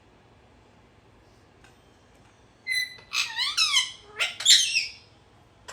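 Pet parrot calling: a quick run of high, whistled calls that glide down and up in pitch, starting about two and a half seconds in and lasting a couple of seconds.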